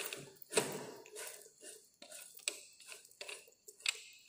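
A handful of light, irregular clicks and knocks from the elevating screw handwheel of a Rockwell hardness tester as it is turned by hand to raise the specimen toward the indenter.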